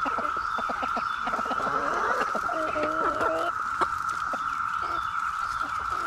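Chickens clucking as they peck, with a run of clucks in the middle, over the steady high drone of a Brood X periodical cicada chorus.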